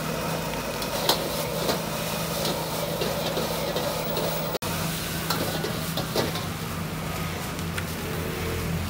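Stir-frying in a wok over a strong gas burner: a steady sizzle, with a metal wok ladle scraping and clacking against the wok several times as the food is stirred and tossed.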